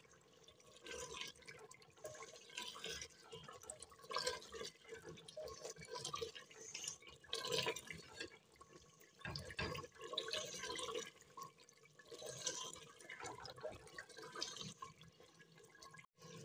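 Chicken masala frying in oil in a clay handi, stirred with a wooden spoon: faint sizzling and bubbling in irregular bursts. The yogurt's water has cooked off and the oil has separated, so the masala is at the bhuna stage.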